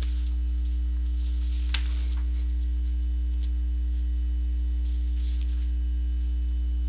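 Steady electrical mains hum, a low buzz with a few fainter higher tones above it. There is a faint click just under two seconds in.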